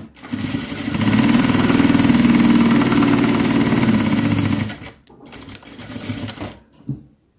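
Zoje industrial sewing machine stitching a seam through cotton fabric: it runs up to speed in about a second, holds a steady rapid needle rhythm for about three and a half seconds, then stops about five seconds in. Softer rustling of the fabric being handled follows.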